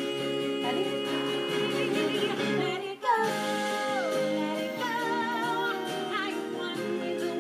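Recorded song with a woman singing long held notes with vibrato over full instrumental backing; a brief break about three seconds in, then a held note that slides down.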